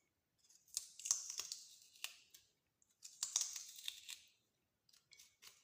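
Cutting and scraping into the centre of a raw white turnip to hollow it out. The sound comes as two runs of short, crisp scrapes and clicks, each lasting a second or so, followed by a few small ticks near the end.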